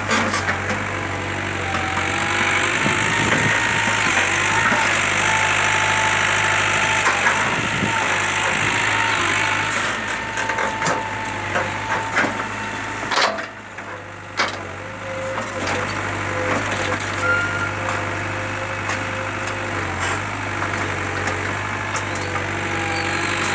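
Backhoe loader's diesel engine running steadily, with a wavering higher whine above it and a brief drop in level about 13 seconds in.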